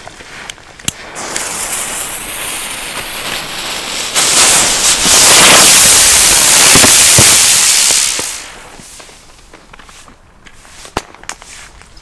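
Red Funke Rauchspur Geschwader winged smoke-trail firework burning with a rushing hiss. The hiss builds from about a second in, jumps much louder about four seconds in, and fades out after about eight seconds.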